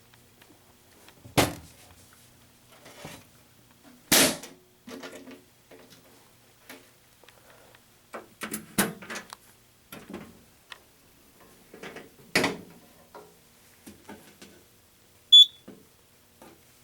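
Scattered clicks and knocks from a fire alarm system being handled and operated, with one short electronic beep near the end.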